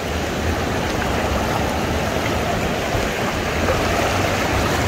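Steady rush of floodwater flowing through a street after a heavy downpour, with a low rumble underneath.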